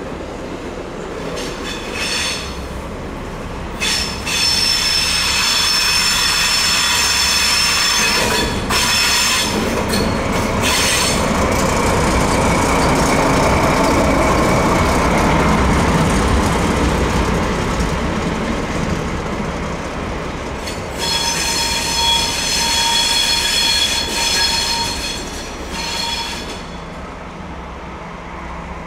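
Train wheels squealing on the rails in several high, ringing tones over the rumble of a train rolling by. The squeal comes in spells: briefly near the start, strongly from about four to eleven seconds in, and again from about twenty-one to twenty-six seconds in.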